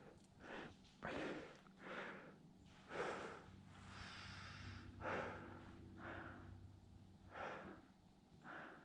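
A person breathing heavily into a close microphone, with a breathy rush in and out about once a second.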